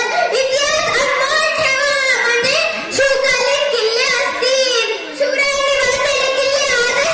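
A young girl's high voice singing in long, held notes with brief breaks between phrases.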